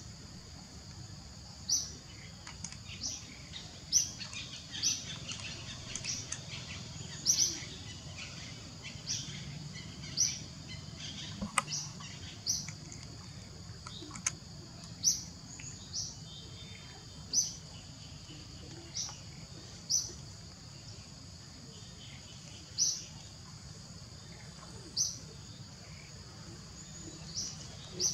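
A bird repeating a short, high chirp every second or two, over a steady high-pitched insect drone.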